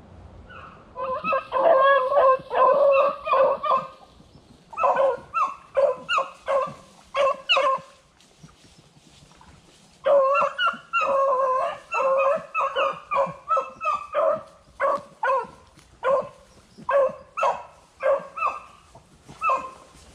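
Beagles barking and baying in quick runs of cries, hounds giving tongue as they run a rabbit. The cries stop for about two seconds near the middle, then pick up again.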